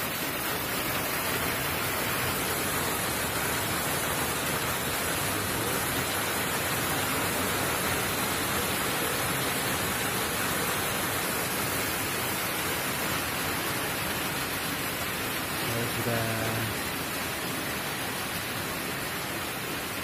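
Steady rain falling, an unbroken hiss throughout. A brief voice is heard about sixteen seconds in.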